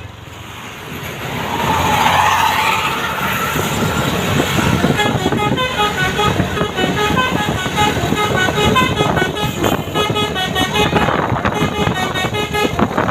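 Basuri telolet bus horn, an electric multi-trumpet horn, playing a fast tune of short, quick-changing notes from about five seconds in, after the sound swells up over the first couple of seconds.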